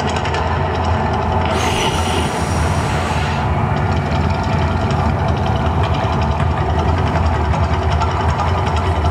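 Mirage volcano attraction erupting: a loud, steady rumble, with a hiss rising about a second and a half in and fading about two seconds later.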